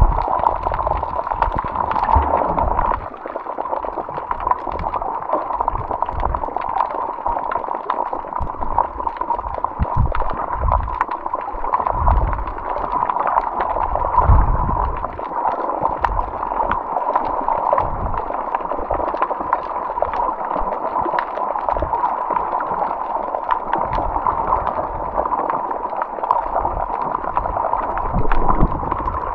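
Water gurgling and sloshing over a camera microphone, muffled as in snorkeling footage, with irregular low thumps and a steady hum throughout.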